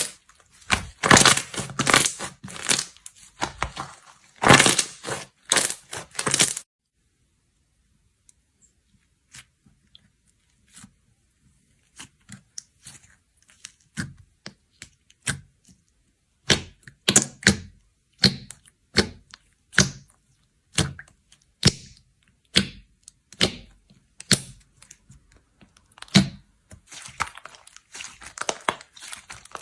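Slime being squeezed and pressed by hand, giving crackling, popping sounds in short repeated presses. After a dense burst at the start there is a nearly quiet stretch, then regular presses about once a second.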